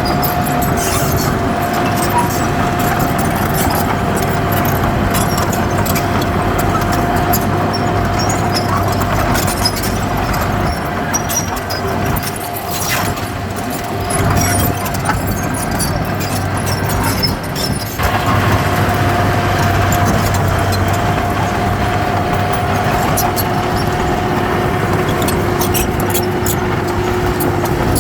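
Heavy diesel earthmoving machinery running steadily under work, a steady high whine over the engine with scattered clicks and clanks. The whine drops away for a few seconds past the middle, then returns.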